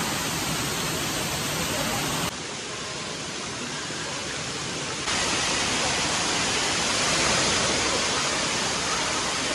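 Steady rushing of running water in a shallow splash pool. It drops a little about two seconds in and comes back up about five seconds in.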